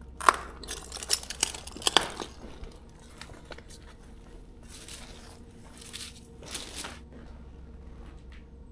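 Crunching and crackling of debris underfoot: a quick run of sharp crunches in the first two seconds, then two softer scraping swishes around five to seven seconds in, over a faint steady hum.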